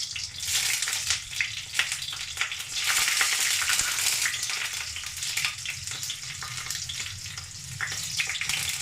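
Green chillies and nigella seeds sizzling in hot mustard oil in a pan, a steady hiss dotted with small pops.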